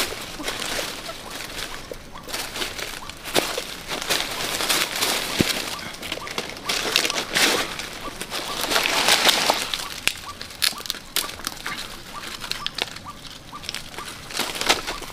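Dry leaf litter and twigs rustling and crackling under a person's hands as they work the forest floor, with many small irregular snaps.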